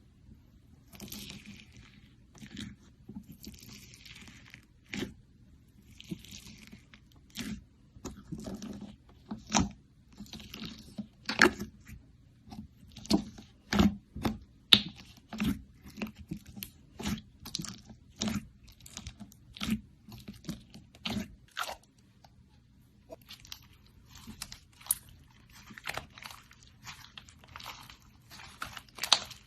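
Slime being squeezed and poked by hand, giving a string of crisp pops and crackles, roughly one or two a second, with soft squishing in between.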